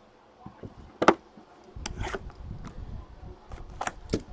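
Handling noise of trading cards and plastic card holders on a table: a few sharp clicks and taps, with low rustling and bumping in the middle.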